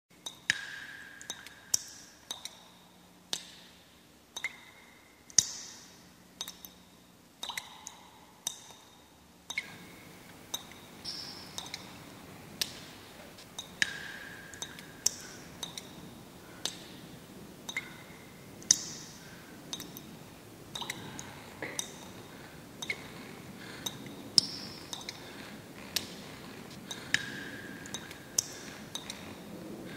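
Water dripping: irregular single drops plinking, each a sharp tick with a short ringing tone, one or two a second, over a faint hiss that gets louder about ten seconds in.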